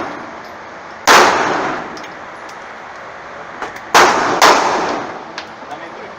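Three loud pistol gunshots at a shooting range, each a sharp crack with a ringing, echoing tail: one about a second in, then two close together about four seconds in.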